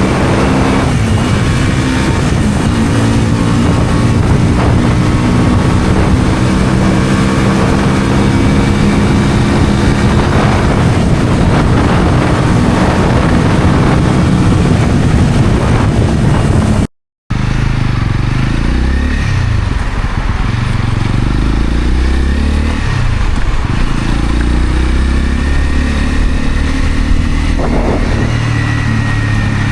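Honda CL250 scrambler's engine and exhaust while riding, its pitch rising and falling with the throttle. The sound drops out briefly about halfway through, then comes back lower and deeper, with some short rises and falls in revs.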